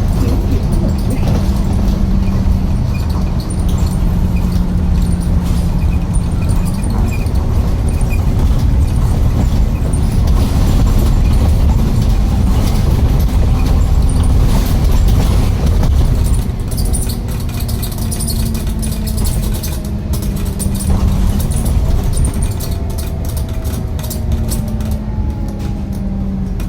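Heavy diesel engine of construction machinery running. Its pitch holds steady for the first several seconds, then rises and falls, and a rapid clatter of ticks joins it in the second half.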